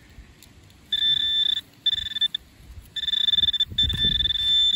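Handheld metal-detecting pinpointer probing loose dug soil, sounding a steady high-pitched beep in four bursts, the last ones longer, as it passes over a metal target, which the detectorist takes for a can.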